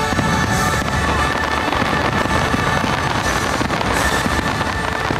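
Fireworks barrage: many shells bursting at once in a dense, continuous run of overlapping bangs and crackles, with the show's music still heard faintly beneath.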